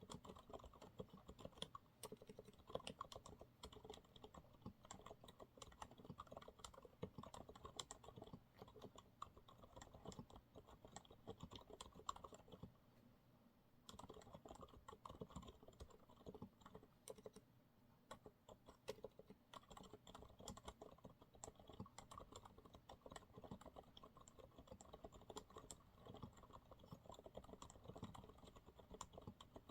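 Continuous quiet typing on a Monsgeek MG108W keyboard with TTC silent brown switches, a dense irregular run of keystrokes that stops briefly about thirteen seconds in before carrying on.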